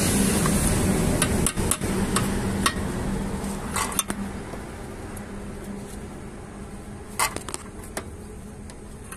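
Scattered metal clinks and taps of an open-end spanner on the nut of a new petrol tap under a TVS XL Super moped's fuel tank, as the tap is tightened. A steady background hum is there at first and fades out about halfway through.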